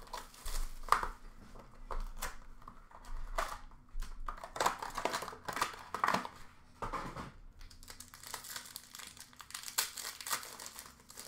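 Hockey card packs being torn open by hand, the wrappers crinkling and tearing in irregular bursts while the cards are handled.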